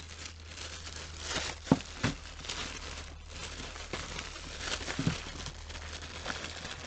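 Thin clear plastic bags crinkling and rustling as they are rummaged through and shifted about, with a couple of sharper taps.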